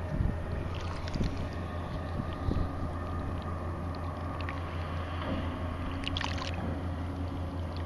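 Dredger's engine running steadily out on the river, heard as a low drone. A few light clicks and a short rustle come about six seconds in.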